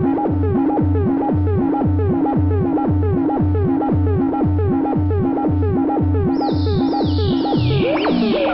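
Electronic music from a Buchla and Eurorack modular synthesizer: a steady low pulse about twice a second, each beat carrying a short blip that falls in pitch. About six seconds in, a higher layer of repeated falling sweeps joins.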